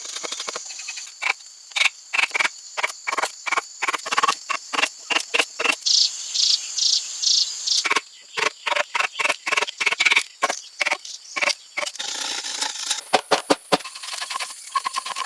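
Hand tool working wood in quick, rhythmic strokes, about three a second, with a short run of higher-pitched strokes about six seconds in.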